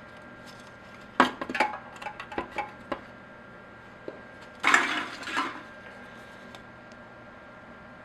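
Empty aluminium soda cans being handled: a quick run of sharp clinks and knocks, then a short scraping, crinkling rustle about five seconds in.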